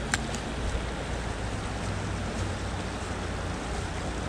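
Fast-flowing creek water rushing steadily, with one sharp click just after the start.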